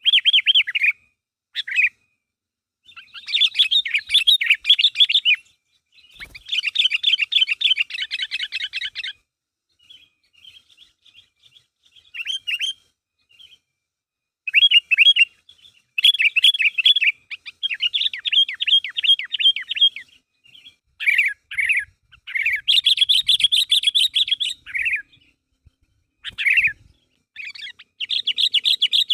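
Sooty-headed bulbul (kutilang) calling busily: repeated bursts of rapid, chattering notes, some under a second and some running about three seconds, separated by short pauses.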